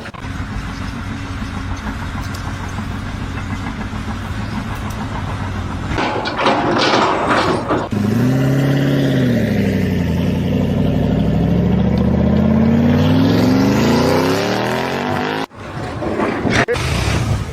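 Engine running steadily, then revving: its pitch rises, dips, and climbs over several seconds before cutting off abruptly near the end, with a short burst of clatter just before the revving.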